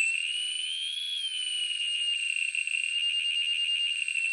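Piezo buzzer driven by an Arduino square wave, sounding a high, shrill tone whose pitch rises about a second in, then falls back and holds steady as the frequency knob is turned. The sweep sits around the piezo's resonant frequency of about 2.5 kilohertz.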